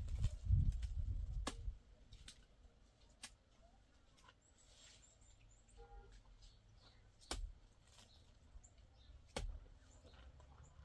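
A few scattered sharp knocks, four in all and several seconds apart, after a low rumble that dies away about two seconds in.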